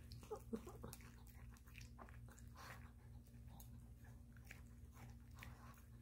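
A Maltese puppy lapping and chewing soupy brown rice from a shallow bowl: faint, scattered small wet clicks, a little busier about half a second in, over a steady low hum.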